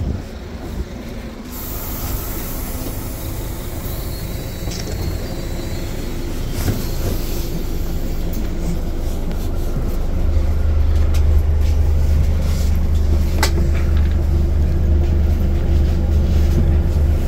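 Cabin noise inside a Scania articulated city bus (BVG type GN 18): a steady low engine drone that grows louder about ten seconds in, with a few sharp clicks.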